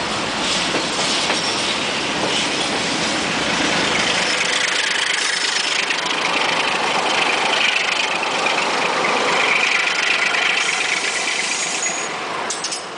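Freight train passing close beneath: hopper wagons rolling over the rails, then a Romanian Class 60 (LDE 2100) diesel locomotive's 12-cylinder Sulzer engine running as it goes by. The sound fades near the end.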